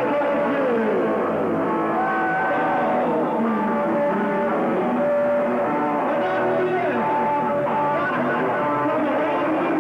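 Live rock band playing a song: bass guitar, electric guitar and drums at a steady loudness, with a man singing into a microphone.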